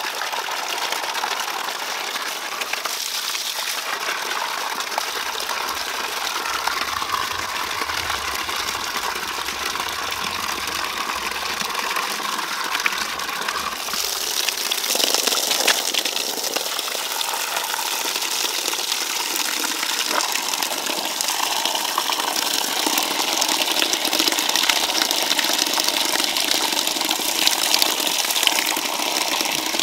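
Water rushing steadily, a little louder from about halfway through.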